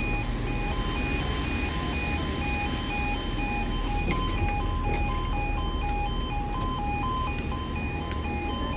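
British level crossing audible warning alarm (yodalarm) sounding continuously, switching back and forth between a lower and a higher tone in short even steps. It warns that the barriers are down and a train is approaching.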